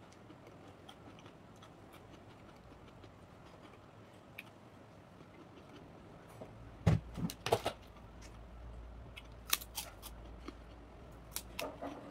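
Crisp crackers in a plastic tub being handled: sharp crackling snaps and clicks about seven seconds in, again around ten seconds and near the end, as the tub is set down and opened and a cracker is broken. Before that only faint small taps of eating rice by hand.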